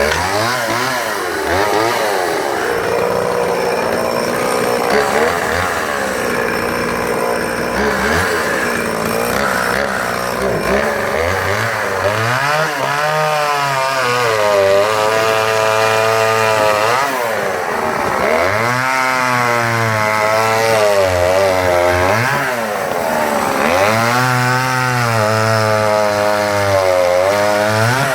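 Oleo-Mac 233 vintage two-stroke chainsaw running at high revs, its engine pitch dipping and rising again and again as it cuts through small firewood logs.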